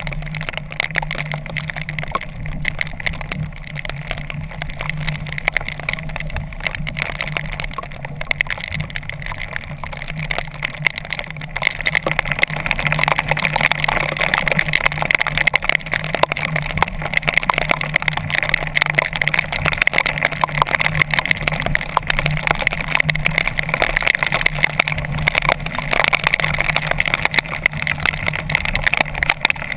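Storm wind, rain and wave spray rushing over a GoPro housing on a sail kayak in rough open sea, growing louder about halfway through, over a steady low hum.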